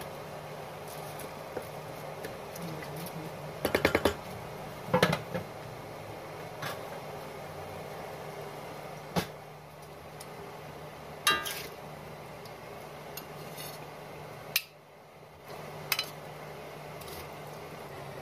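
A metal ladle and a saucepan lid knocking and clinking against a wok and pot: a quick rattling cluster about four seconds in, then single sharp clinks every second or two, one of them ringing briefly. A steady low hum runs underneath.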